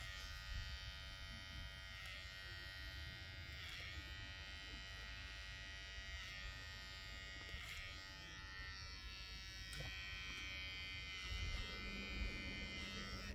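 Small electric motor buzzing steadily, one unchanging tone with many overtones.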